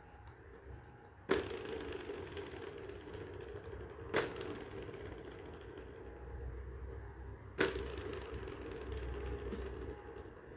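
Plastic tiered ball-track cat toy batted by a cat's paw: three sharp clacks, each followed by the ball rolling round the plastic track for two to three seconds.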